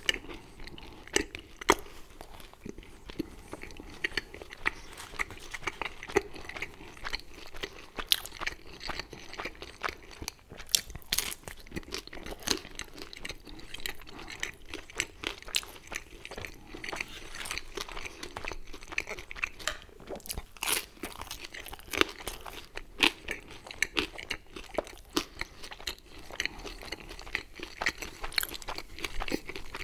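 Chewing and crunching of pizza close to a microphone, with irregular sharp crackles from the crust throughout.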